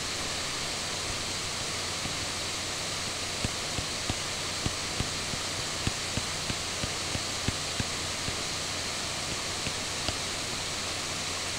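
Steady background hiss with soft, irregular taps about one or two a second, from a stylus dabbing on a drawing tablet while smoothing with a big brush.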